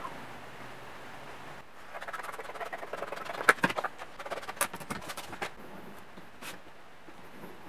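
Sheet material being handled and shifted on a plastic cutting board: crinkly scraping and rustling with several sharp clicks of scissors and tools being moved, busiest in the middle and quieter near the end. A faint steady hum lies under the opening moment.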